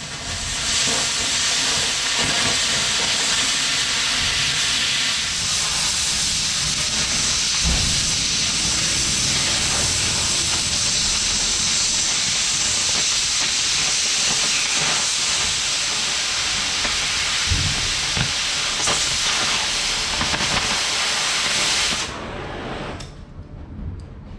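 Oxy-fuel cutting torch blowing its cutting jet through the steel plate of a loader bucket: a loud, steady hiss that stops abruptly near the end.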